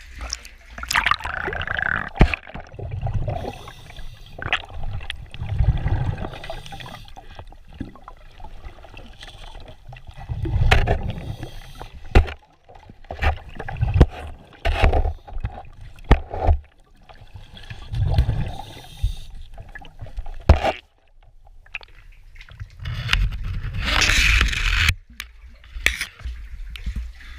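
Water sloshing and gurgling around a caver moving through water, with irregular surges every few seconds and sharp knocks.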